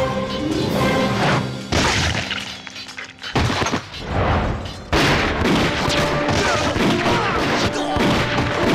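Dramatic film score over battle sound effects: heavy booms about two and five seconds in, then a dense run of gunshots and impacts to the end.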